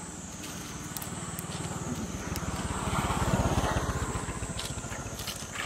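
A motor vehicle passing, its engine sound growing louder to a peak about three seconds in and then fading away.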